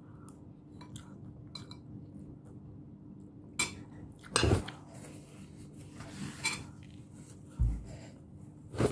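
A metal spoon clinking and scraping against a plate about five times, the loudest about halfway through, with quiet chewing between. A low steady hum runs underneath.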